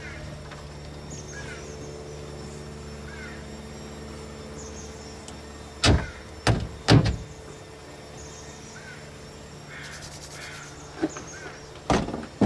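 Several sharp knocks and thuds, three close together about halfway through and three more near the end, over a steady low hum and short high chirps repeating every second or two.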